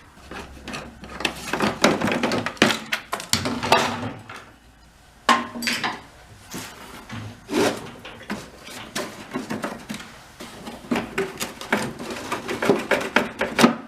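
Irregular clattering, clicking and knocking of tools, screws and plastic covers being worked off a Toro snowblower, with a short pause about four seconds in.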